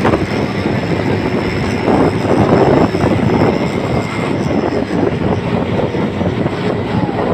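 Vehicle engines running at speed, with wind buffeting the microphone of a moving motorcycle.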